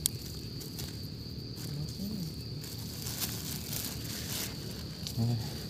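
Steady high-pitched drone of insects in the forest, with a sharp click right at the start and a few soft rustles.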